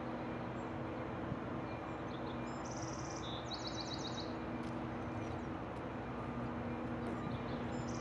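Steady hum of distant road traffic from the highway overpasses, with a songbird singing one short phrase, a buzzy note and a quick trill, about two and a half seconds in.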